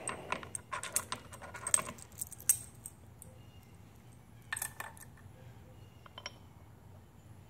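Light metallic clinking and rattling of a steel roller thrust bearing and its races being handled and slid along a lathe apron shaft by hand. A quick run of clinks fills the first three seconds, followed by a few scattered ticks.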